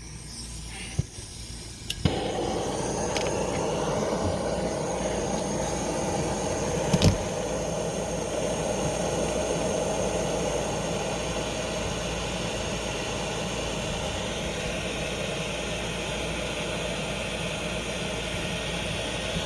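A couple of clicks, then a propane torch flame starts suddenly about two seconds in and burns with a steady hiss. A brief knock comes about seven seconds in.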